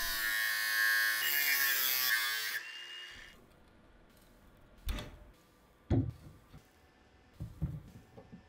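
A small power tool runs with a steady pitched whine that drops in pitch twice and dies away about three seconds in. Then come a few separate metallic knocks, as the cut tabs of a steel pipe clamped in a vise are worked with a wrench.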